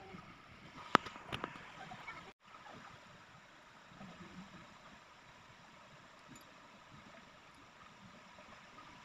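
Faint steady background hiss with a low rumble, broken by a sharp click about a second in and a softer click just after. The sound cuts out for an instant a little later.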